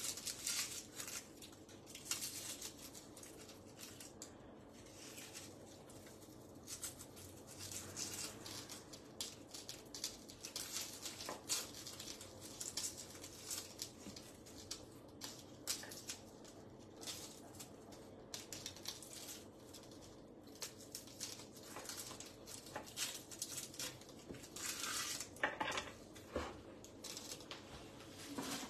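A small kitchen knife clicking and tapping irregularly on a wooden cutting board as shallots are peeled and cut, over a faint steady hum.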